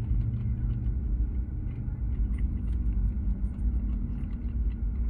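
Steady low rumble of a car idling, heard from inside the closed cabin, with faint small clicks over it.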